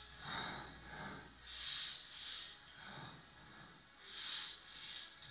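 A man's breathing close to a headset microphone, heard as short hissy puffs. Two in-and-out pairs come about two and a half seconds apart while he holds a stretch.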